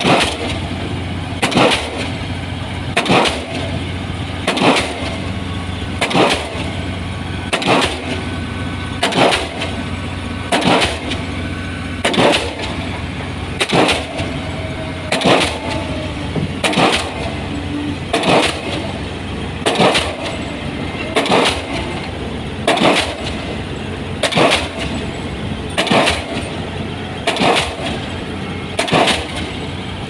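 Diesel pile hammer driving a concrete pile, striking with a sharp bang about every one and a half seconds in a steady rhythm, over a continuous low engine drone.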